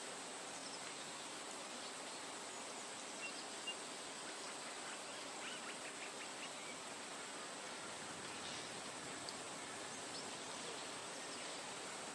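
Forest nature ambience: a steady soft hiss with a constant high insect drone over it and a few faint short chirps, plus two small clicks about three and a half seconds in.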